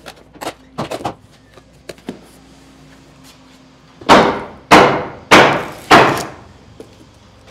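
A few light knocks and taps, then four loud bangs, evenly spaced a little over half a second apart, each ringing briefly.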